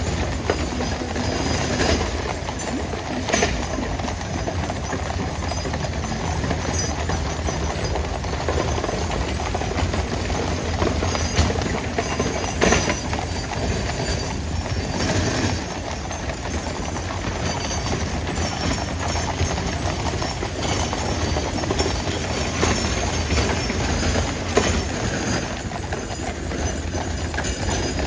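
Many horses' hooves clip-clopping irregularly on a hard surface, over a steady low rumble.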